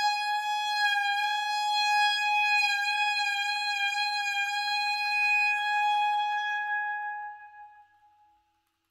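Solo clarinet holding one long high note, fading away about seven to eight seconds in.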